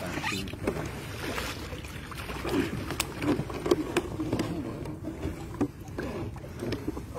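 Sounds aboard a small boat at sea: a steady low rumble, scattered sharp knocks and clicks, and low indistinct voices.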